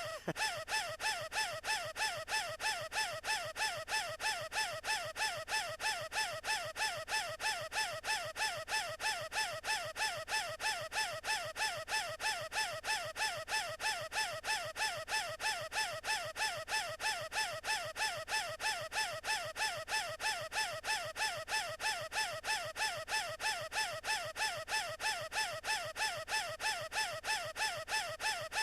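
An animated cartoon character's high, squeaky, gasping wheeze, as if struggling for air. It is looped and repeats about three times a second without a break.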